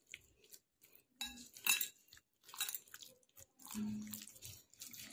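Marinated chicken pieces being turned by hand in a glass bowl: intermittent soft squelches and light clinks against the glass.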